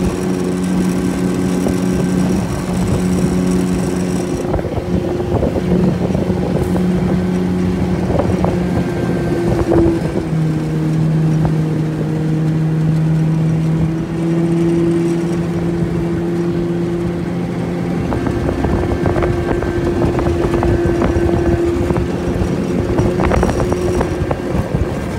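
25 hp Johnson outboard motor running steadily under way on a 14 ft jon boat, its note dipping about ten seconds in and coming back up a few seconds later, with scattered knocks over it.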